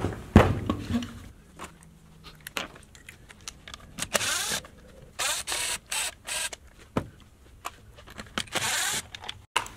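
Cordless driver running in several short bursts, backing the screws out of a hedge trimmer's plastic recoil starter cover. Two sharp knocks of tool handling come at the very start.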